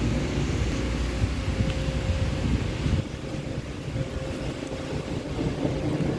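Low rumble of thunder over the hiss of steady rain, easing about halfway through.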